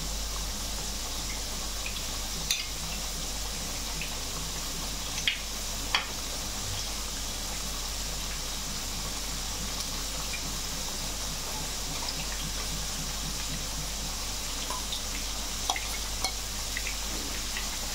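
Potato slices deep-frying in hot oil: a steady bubbling sizzle, with a few short sharp clicks.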